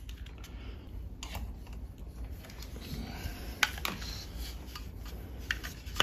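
A small plastic network adapter and its Ethernet and coax cables being handled: faint rubbing and shuffling with a few sharp plastic clicks, one about a second in, two close together in the middle and one near the end.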